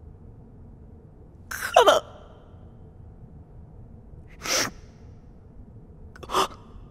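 A young man crying: three choked sobs, gasped breaths about two seconds apart. The first is the loudest, with a falling pitch.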